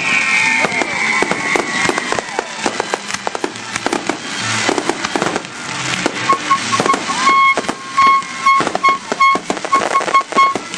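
Aerial fireworks going off in quick succession: bangs and crackling bursts, with a whistling shell falling in pitch at the start. From about six seconds in, a high beeping tone pulses over the bangs.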